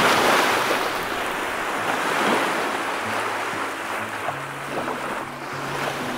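Ocean waves surging: a steady rushing wash that swells in at the start and slowly eases off.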